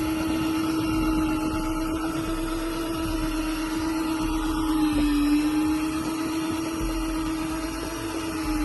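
Electric fishing reel motor whining steadily as it winds line up from deep water, dipping briefly in pitch about five seconds in as the load changes.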